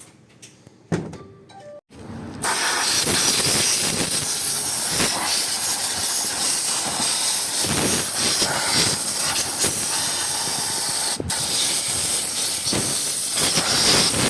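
Compressed-air blow gun hissing steadily as air is blown through a part of the gearbox. It starts about two seconds in, with a momentary break about three-quarters of the way through.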